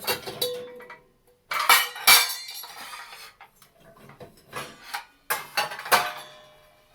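Metal utensils and glassware clinking and clattering as they are handled in a dishwasher rack: several bouts of sharp knocks, a couple of them ringing on briefly.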